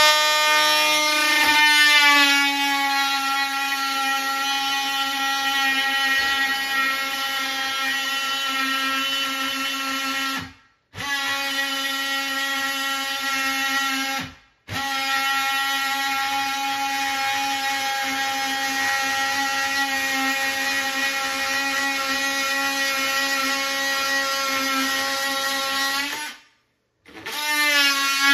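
Oscillating multi-tool cutting a sink opening in a countertop: a steady high buzzing whine, a little higher-pitched for the first couple of seconds, that stops briefly three times and starts again.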